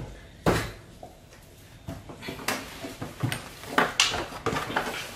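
Irregular clicks, knocks and light rattles of plastic and metal parts being handled while a backpack sprayer's spray lance and hose are fitted: two sharp knocks at the start and about half a second in, then a run of lighter clicks from about two seconds in.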